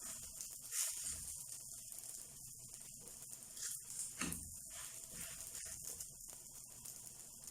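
Msemen frying in a pan with a little butter, a faint steady sizzle, with two soft knocks about a second in and about four seconds in.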